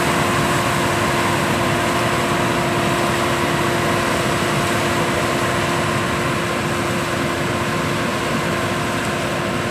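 Combine harvester running steadily while cutting and threshing rapeseed: a constant machine drone with a steady hum, fading slightly as it works away down the field.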